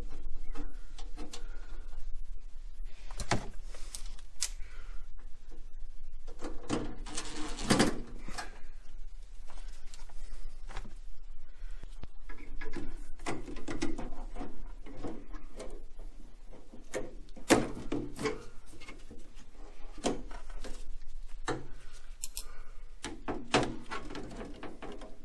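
Scattered clicks, knocks and rustles of needle-nose pliers and rubber tubing being worked inside the open metal cabinet of a tankless water heater, as a hose is fitted onto a new condensate neutralizer. Busier stretches of rattling come about a quarter of the way in, around the middle and near the end.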